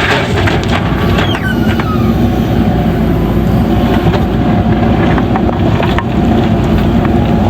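Diesel engine of a JCB backhoe loader running steadily under load while it works gravel, with scattered knocks and rattles and a short falling squeal about a second in.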